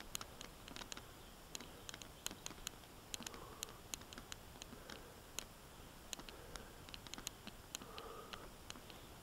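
Mountain bike rolling along a rough single-track trail: quiet, irregular sharp clicks and rattles from the bike over a faint rustle.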